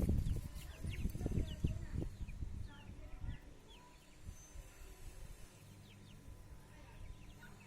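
Chicks peeping in short falling chirps. A low rumble with thumps, the loudest sound, fills the first three seconds and then fades.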